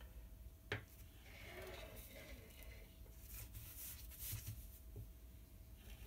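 Faint handling sounds of small fabric bag weights being shifted on nylon kite fabric over a glass cutting surface: a single light knock under a second in, then soft rustling.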